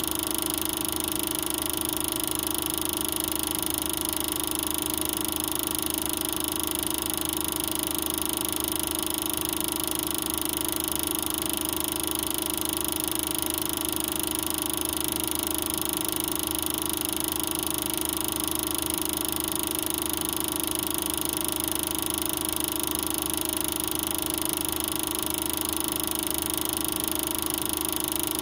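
Super 8 film projector running: a steady, unchanging mechanical whir and hum.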